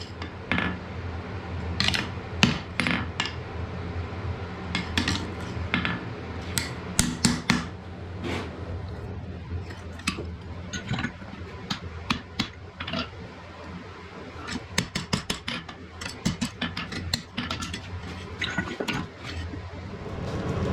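Light hammer taps and metallic clinks on iron, irregularly spaced, with a quicker run of taps about two-thirds of the way through.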